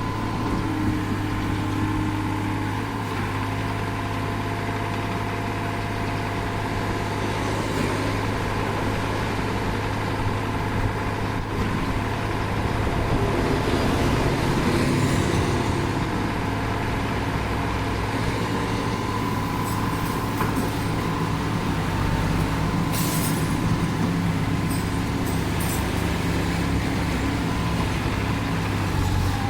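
Kobelco SK30UR mini excavator's three-cylinder Yanmar diesel running steadily with a steady higher whine over it. It grows slightly louder about halfway through, and a few sharp clicks or knocks come about two-thirds of the way in.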